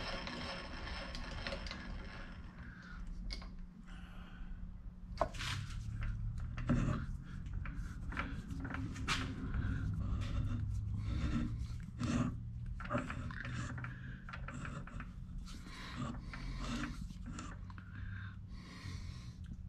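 Hands working a milling machine's piston vise and lifting out an aluminium piston: scattered clicks, light metal knocks and scrapes, over a steady low hum.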